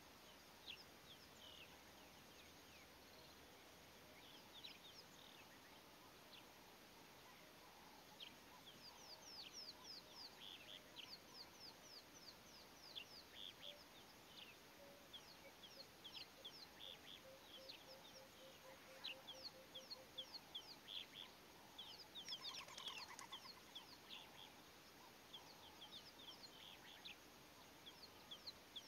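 Faint wild birdsong: many quick, high, downward-sweeping chirps, a short run of low, evenly spaced notes in the middle, and a louder call about three-quarters of the way through.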